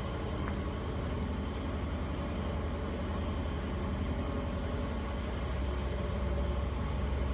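Steady low hum of workshop machinery running, growing slightly louder near the end.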